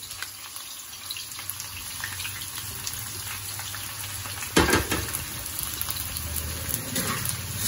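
Sliced red onions sizzling and crackling in hot oil in a kadai, the start of frying them golden. A brief louder burst comes about four and a half seconds in.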